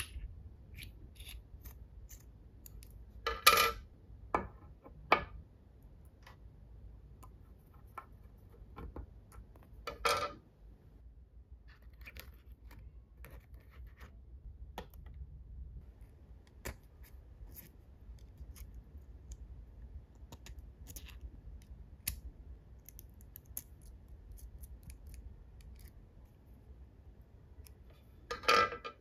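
Small metal engine-model kit parts handled and fitted together by hand: scattered light clicks and scrapes of metal on metal, with louder clacks about three to five seconds in, around ten seconds, and near the end.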